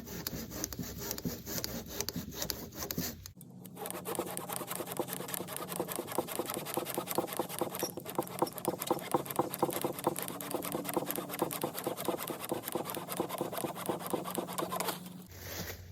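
Handsaw cutting through a dead log with quick, steady back-and-forth strokes, with a short pause about three seconds in.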